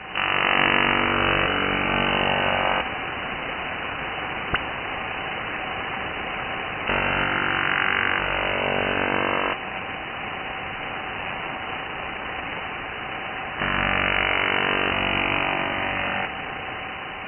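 Over-the-horizon radar interference heard through an HF receiver's single-sideband audio: a rapid pulsing buzz over static. It swells louder three times for two to three seconds each, with a faint steady tone beneath, and fades near the end.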